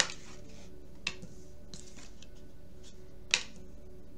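Tarot cards being laid down on a table: a few sharp taps, a loud one at the start and another about three seconds in, over faint steady background music.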